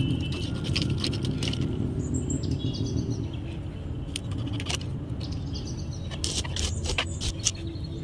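Rose bush being pruned: a run of sharp snips, clicks and scrapes as stems and dead leaves are cut away. Birds chirp over a steady low background rumble.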